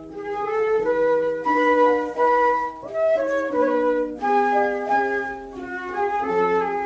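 Instrumental interlude of a children's song: a melody of steady held notes, changing every half second or so, over chordal accompaniment, with no singing.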